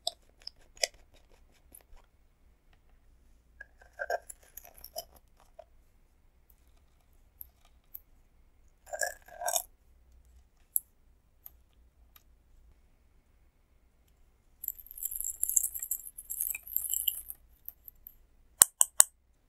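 Small handling sounds of slime-making: the plastic cap of a glitter bottle clicking open, glitter gel scraped with a metal spatula onto a plastic plate, then a spill of flower-shaped sequins patters onto the plate for a few seconds. A few sharp clicks come near the end.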